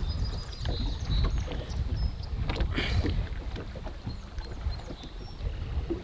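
Wind rumbling on the microphone over water lapping against a boat hull, with a brief louder noise about three seconds in.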